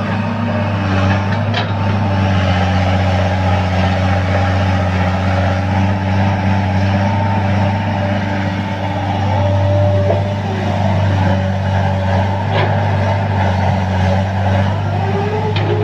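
Caterpillar excavator's diesel engine running steadily under load, with a hydraulic whine that shifts in pitch as the boom and bucket work. A few short sharp clanks stand out, one early and two near the end.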